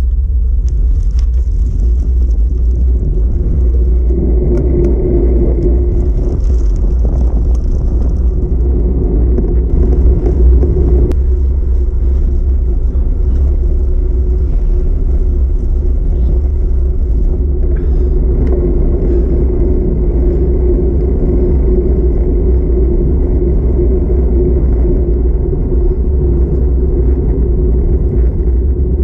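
Steady wind rush and rumble on a handlebar-mounted camera's microphone as a road bike rolls along asphalt, with the hum of the tyres on the road underneath.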